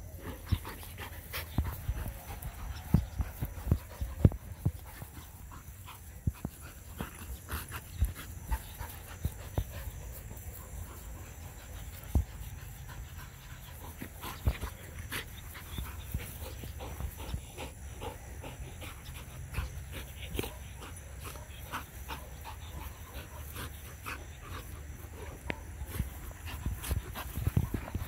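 Two Belgian Malinois play-wrestling over a tennis ball, panting and scuffling, with many irregular sharp knocks and clicks throughout.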